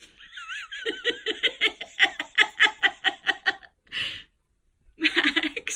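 Laughter-like vocal sound: a short high warble, then a long run of quick rhythmic pulses at about four a second, with a second short run near the end.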